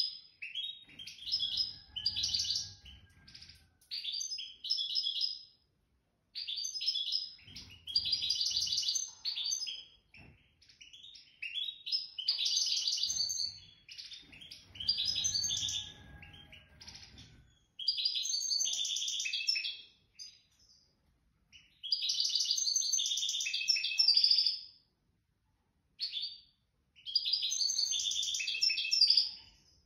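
A European serin singing: phrases of fast, high, jingling song a few seconds long, repeated with short pauses between them.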